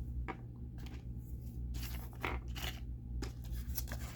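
Irregular plastic crinkling and clicking from an action figure and its small plastic accessories being handled, over a low steady hum.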